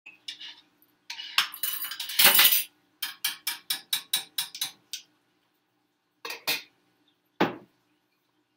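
Metal utensil scraping and clinking against a saucepan, then a quick run of about ten light taps, about five a second, and a few more clinks near the end.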